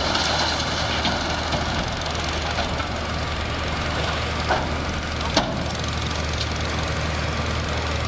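A 24-ton dump truck's diesel engine running steadily while it tips rock and soil with its bed raised, creeping forward. Two short sharp knocks stand out about four and a half and five and a half seconds in.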